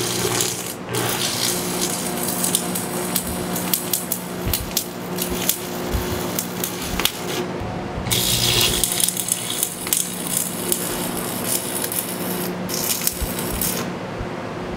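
Stick welding arc crackling and sputtering as a nickel cast iron rod lays a bead on cast iron, over a steady low hum. The crackle breaks off briefly about halfway, then stops about a second before the end.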